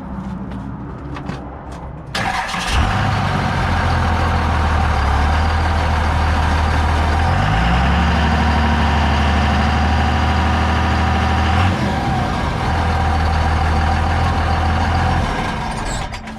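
Service truck's engine and drivetrain running close by from underneath, starting loudly about two seconds in, as it is put in drive to check whether the drive shaft turns: the test for whether the breakage is in the rear axle or the transmission. The steady low hum steps up in pitch partway through, breaks off briefly, then runs on before dying down near the end.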